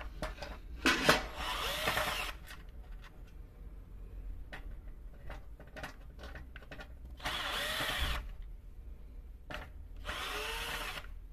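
Cordless drill-driver backing out the three screws that hold a sandwich toaster's grill plate: three short runs of the drill's motor, each about a second long, with clicks of handling between them.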